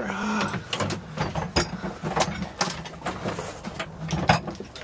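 Hard plastic junk being shifted and knocked together: a run of irregular knocks, clatter and scrapes.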